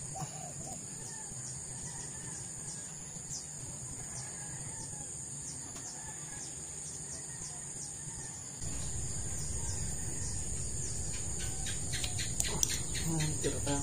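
Steady high-pitched insect trill, typical of crickets, with a few short bird chirps. Near the end there is a quick run of light clicks.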